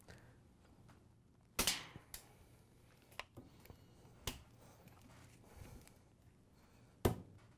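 A small flathead screwdriver prying at a black plastic refrigerator door hinge bearing pressed into a metal freezer door, working under its lip to crack the edge off. It makes a handful of sharp clicks and ticks. The loudest come about a second and a half in and near the end.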